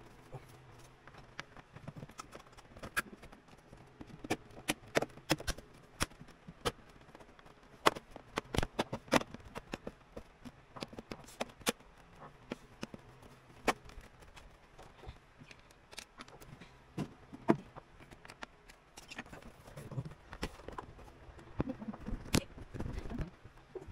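Scattered sharp clicks and knocks of a plastic laptop case being handled, its bottom cover pressed down and snapped back into place. Some low thuds come near the end.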